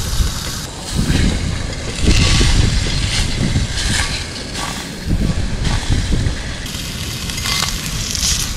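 Ginger-marinated squid sizzling in a black iron skillet over a gas camp stove as the pieces are turned, with steam coming off. Wind rumbles on the microphone underneath.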